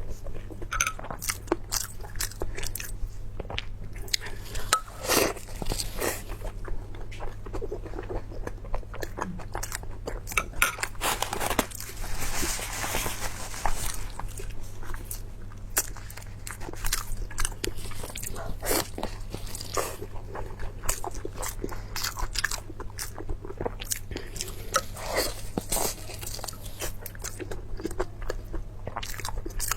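Close-up chewing of food, with many irregular crisp crunches and bites, denser for a couple of seconds about twelve seconds in. A steady low electrical hum runs underneath.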